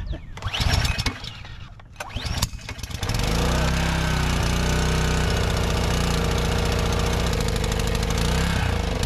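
Gas pressure washer's small engine pull-started cold after sitting all winter: two pulls on the recoil starter, then it catches about three seconds in and runs steadily.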